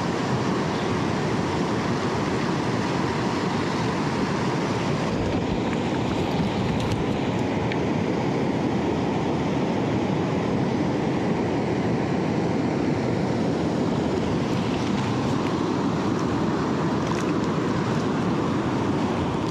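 Steady rush of river current flowing over rocks, an even, unbroken noise.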